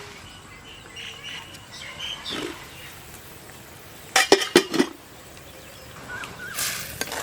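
A quick run of four sharp knocks or clatters about four seconds in, with faint animal calls earlier on.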